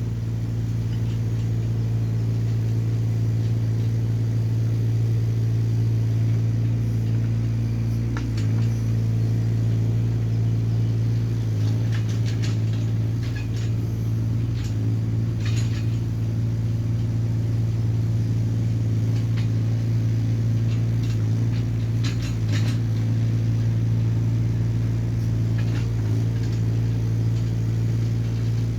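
Diesel engine of a small Hyundai excavator running steadily with a constant hum, with a few short knocks now and then.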